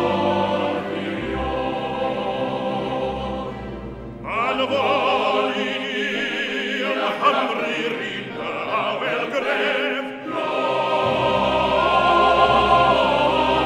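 Choir singing a Welsh-language hymn-like song with orchestral accompaniment. From about four to ten seconds in, a higher, louder voice with wide vibrato carries the melody, and sustained choral chords return after it.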